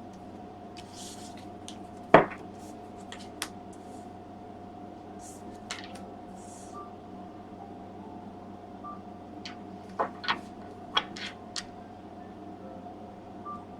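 Tarot cards being handled and laid out on a table: scattered sharp clicks and snaps, the loudest about two seconds in and a quick cluster around ten to eleven seconds, over a steady hum.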